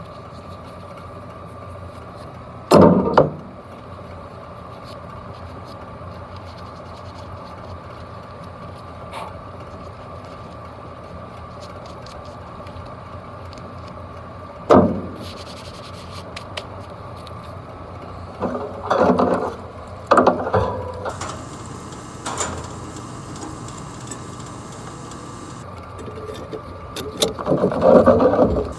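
Steady hum of running machinery, broken by sudden knocks and clatters of metal parts being handled while a blower motor is fitted, with a louder cluster of rattling near the end.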